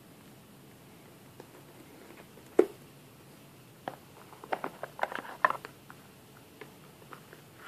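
Hands handling a Mac mini's cardboard box and its white card insert. There is one sharp knock about two and a half seconds in, then a run of light taps, clicks and rustles.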